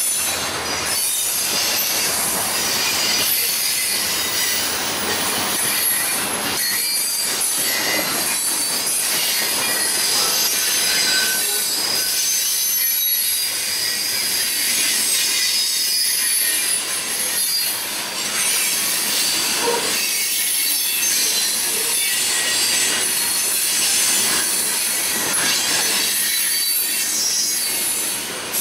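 Railroad cars rolling past with their wheels squealing against the rails, a steady high-pitched screech with several shrill tones at once and an occasional knock of wheels over the track.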